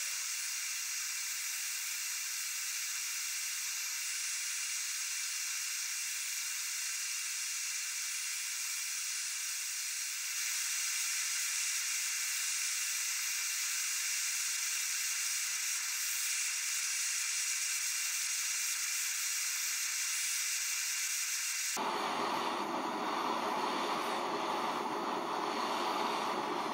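Handheld gas torch flame hissing steadily as it blows into a small fibre-insulated furnace, a little louder from about ten seconds in. Near the end the sound changes abruptly to a deeper, fuller rushing roar.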